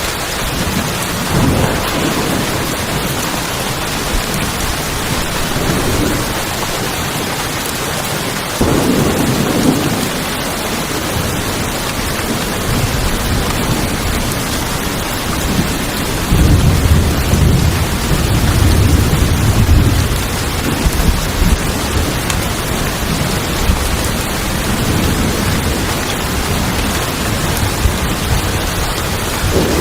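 Steady heavy rain drumming on tin roofs, with thunder rolling in the low end: a rumble about a third of the way in, and a longer, louder roll past the middle.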